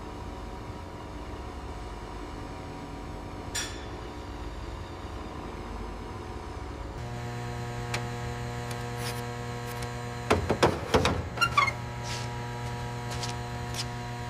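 A steady electrical hum that gets stronger about seven seconds in, with a click near the start and a quick run of knocks and metallic clinks about ten to twelve seconds in.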